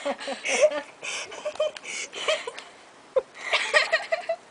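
Squeals and laughter in short, breathy bursts of excited voices.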